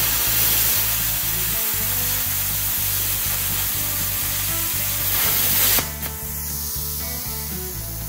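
BestArc BTC500DP plasma cutter's torch cutting 3/8-inch steel plate: a loud, steady hiss of arc and air that cuts off suddenly about six seconds in, then a softer hiss carries on. On 110 volts the machine is at its limit on this thickness and barely gets through.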